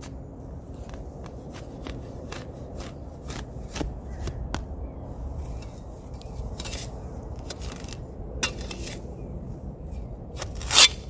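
Steel shovel blade digging and scraping into sandy soil, with short gritty clicks as it strikes grit and small stones, and a longer, louder scrape near the end.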